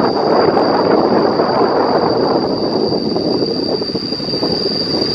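Steady rumbling noise of a vehicle ride along a paved path, with a thin, high, steady whine above it; the rumble eases slightly about halfway through.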